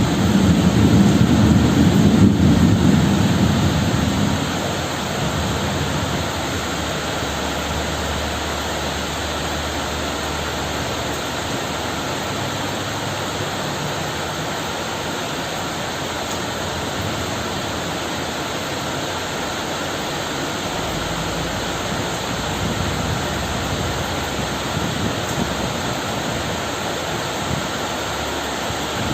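Steady heavy rain with a rumble of thunder that fades out over the first few seconds, leaving the rain falling evenly.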